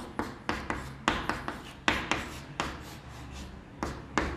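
Chalk writing on a blackboard: a string of short, quick scraping strokes and taps, irregularly spaced, about a dozen in all, as lines and a ring are drawn.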